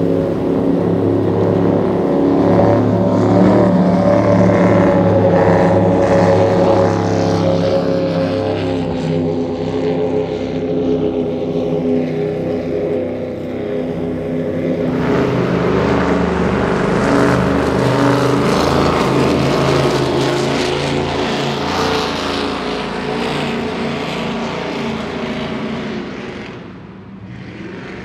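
Cigarette Top Gun 38 offshore powerboat's engines running at high speed as it passes, a steady multi-toned engine note with a rush of water and spray; the sound fades near the end as the boat pulls away.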